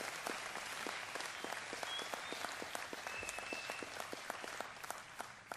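Audience applauding, a dense patter of many hands clapping that slowly thins and dies away near the end.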